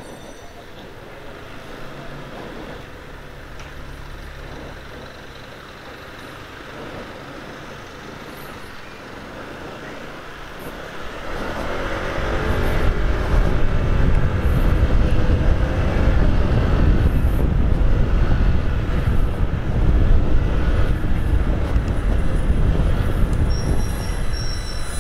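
Road and engine noise from a ride through city traffic. It is moderate for the first ten seconds, then about eleven seconds in it swells much louder into a heavy low rumble with a briefly rising whine, and a thin high tone appears near the end.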